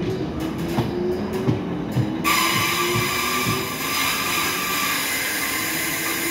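South Western Railway Class 455 electric train pulling out along the platform. Its wheels click and knock over the rail joints over a low steady whine. About two seconds in, a loud hiss with a high whine sets in suddenly and continues.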